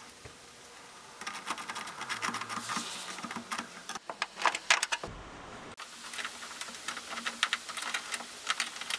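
Metal bolts, nuts and washers handled while a mud flap is fastened: irregular light metallic clicks and rattles, with one short low thump a little past the middle.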